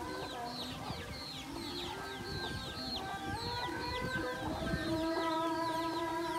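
Rapid, high falling peeps of chicks, several a second without pause, over background music with held notes.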